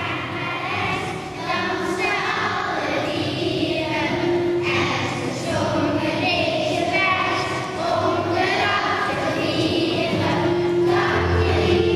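A group of children singing a song together, accompanied by an acoustic guitar.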